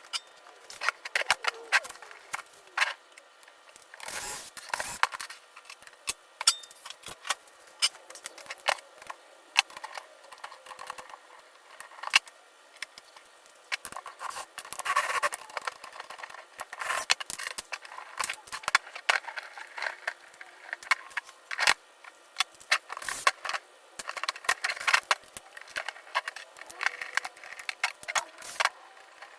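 Quick, irregular clicks, clinks and scrapes of hand tools and small metal and plastic parts being handled while the front suspension and differential of a 1/5-scale RC car are taken apart.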